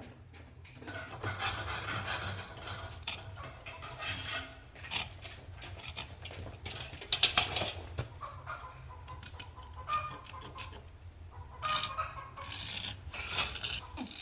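Irregular rasping and scraping strokes of something hard being worked by hand, with the loudest scrapes about seven seconds in.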